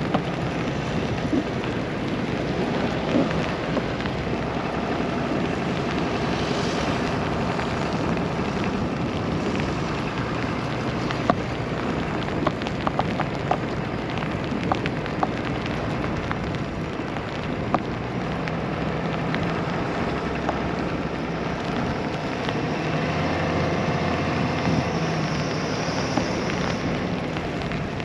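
Steady hiss of a winter storm, wind with snow or sleet driving against surfaces, broken by scattered light ticks. A faint low hum runs under it in the second half.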